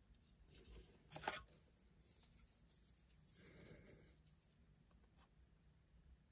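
Faint handling sounds of fingers on a small metal lens mount adapter: a light tick a little over a second in, then a brief rubbing scrape.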